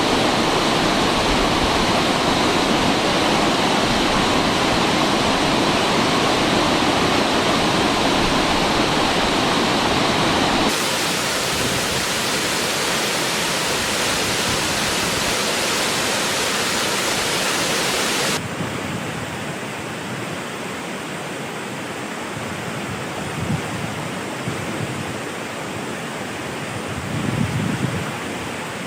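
Waterfall rushing: a steady wash of falling water. Its tone and level shift abruptly twice, about 11 and 18 seconds in, as the recording cuts between positions.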